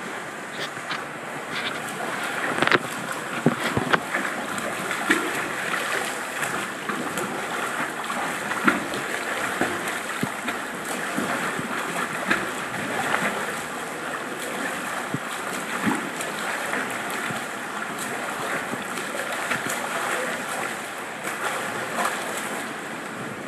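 Pool water splashing from a swimmer's front crawl: a continuous churning wash with frequent irregular slaps as the arms enter the water and the legs kick.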